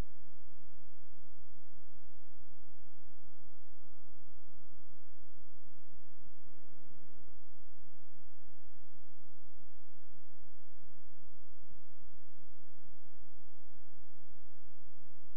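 Steady electrical mains hum with many overtones, at a constant level, with a brief change in its tone about six and a half seconds in.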